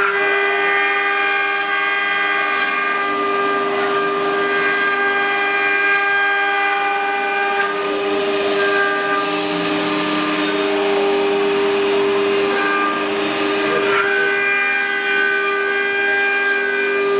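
Multi-spindle 4-axis CNC wood router running, several spindles whining at once in a steady chord of tones over a hiss of cutting as the bits carve curved wooden legs on rotary axes.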